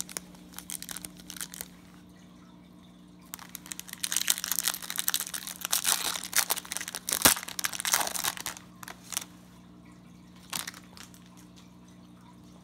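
Plastic wrapper of a Bowman baseball card pack crinkling and tearing as it is opened, busiest for several seconds in the middle, with scattered light clicks before and after. A faint steady low hum runs underneath.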